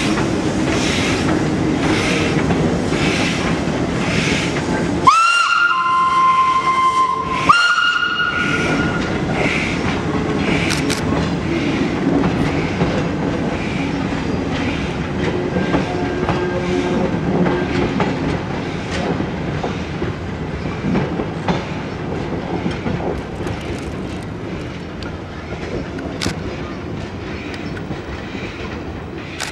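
The 140 C 231 Consolidation steam locomotive working a train away, with even exhaust beats about twice a second. About five seconds in comes a loud steam whistle that drops in pitch partway and breaks briefly before sounding again. The chuffing and the rattle of the carriages then slowly fade as the train draws away.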